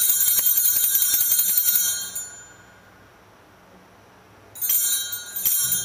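Altar bells (sanctus bells) shaken to ring at the elevation of the chalice during the consecration: a rapid, bright jingling that stops about two seconds in, then a second, shorter round of ringing near the end.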